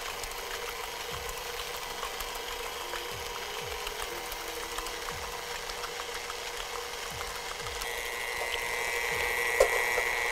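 KitchenAid Ultra Power stand mixer running steadily, its wire whisk beating cream cheese in the steel bowl. About eight seconds in it grows louder, with an added high whine.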